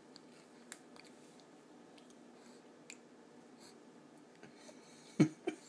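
Faint wet mouth clicks and smacks from a baby eating pear puree from a squeeze pouch. About five seconds in come two short, loud voice sounds in quick succession.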